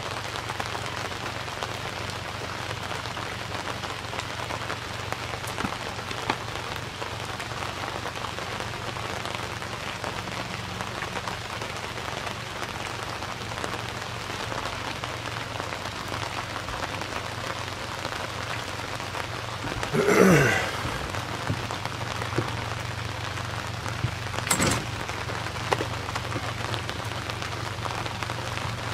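Steady hiss of rain falling on and around a pontoon boat, with a low steady hum underneath. A loud thump sounds about twenty seconds in, and a shorter, sharper knock follows a few seconds later.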